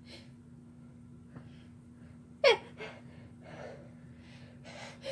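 A person's short, sudden vocal burst about halfway through that drops sharply in pitch, in the manner of a gasp or stifled sneeze, with a smaller one right after. Then comes a run of heavy breaths, one roughly every half second or so.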